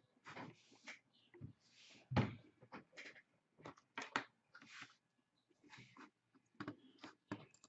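Hands handling sealed trading-card boxes: irregular rustles, light clicks and knocks, with a louder thump about two seconds in.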